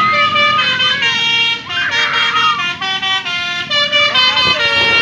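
Tour bus's Basuri telolet musical horn playing a tune, its loud horn notes stepping from pitch to pitch every half second or so.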